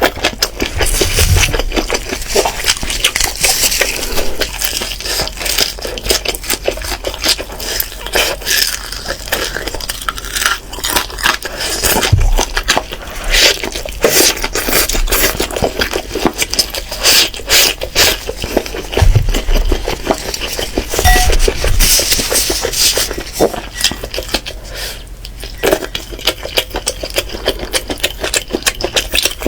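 Close-miked eating sounds of steamed chicken being bitten and chewed: a dense, continuous run of wet clicks and crackles with a few low thumps.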